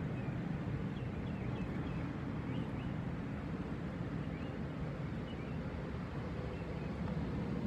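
Steady rumble of interstate traffic heard from inside a parked car, with a few faint bird chirps in the first half.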